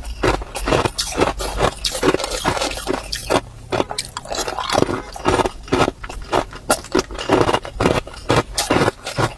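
Hard ice cubes crunched between the teeth close to the microphone: an irregular run of sharp cracks several a second. There is a short lull about three and a half seconds in while a fresh piece goes into the mouth.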